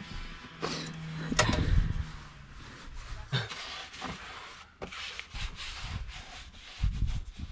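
Paintbrush on a long handle rubbing paint onto the cabin's wooden cladding in a series of uneven strokes.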